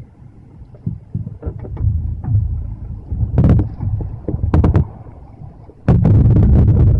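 Typhoon wind gusting against the microphone, a loud rumble that rises and falls, growing strongest near the end, with scattered sharp clicks and taps.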